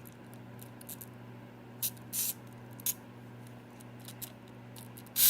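A steady low hum with a few short, brief rustling scrapes, four or five in all, the last and loudest near the end.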